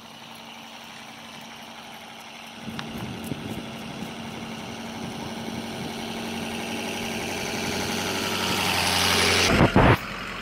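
Pickup truck engine running as the truck approaches and draws up close, getting steadily louder. A couple of loud thumps come near the end.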